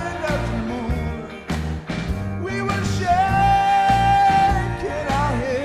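A man singing into a microphone over a rock backing track with a steady bass and beat, holding one long high note for about a second and a half past the middle.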